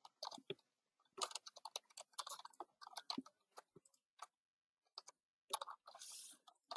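Faint typing on a computer keyboard: a run of irregular keystrokes, with a short hiss just before the end.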